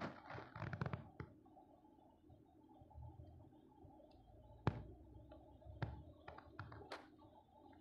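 Faint scattered clicks and taps over a low steady hum inside a car cabin. The sharpest clicks come about halfway through.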